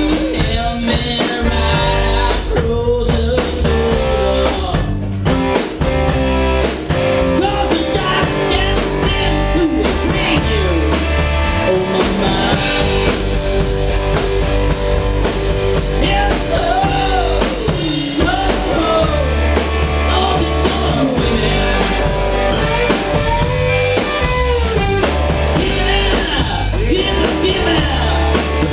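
Rock music with electric guitar and drum kit playing steadily, and a lead line that slides and bends up and down in pitch at several points.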